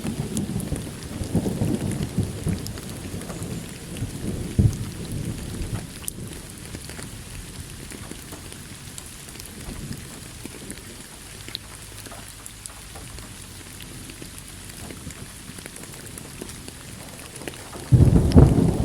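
Steady rain falling, with a rumble of thunder that dies away over the first several seconds. A new thunderclap breaks in suddenly near the end.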